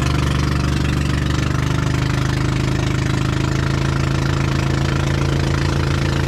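Small engine of a motorized outrigger banca boat running steadily under way, with a fast, even putter.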